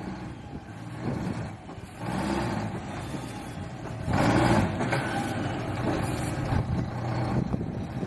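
1999 Mack CL713 logging truck's diesel engine running as the loaded-axle rig drives slowly across a gravel yard, with a louder surge about four seconds in.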